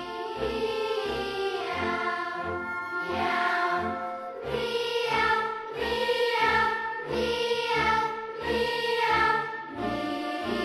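Music with a choir singing held chords. About halfway through it moves into repeated swelling phrases, each about a second and a half long.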